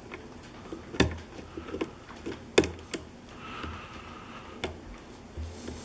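Hook pick working the pin stack of a lock cylinder under a tension wrench: scattered small metallic clicks and ticks, with a few sharper clicks and a short stretch of light scraping midway.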